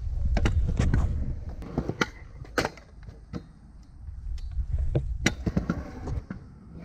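Stunt scooter wheels rolling over skatepark concrete with a low rumble, louder at the start and again about four to six seconds in, broken by a series of sharp clacks of the scooter hitting the ramp and ground.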